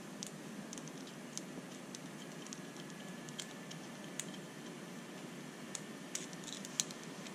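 Faint, scattered little clicks and ticks of tiny plastic and metal RC shock-absorber parts being handled and pushed together by fingers, over a steady low room hiss, with a sharper click near the end.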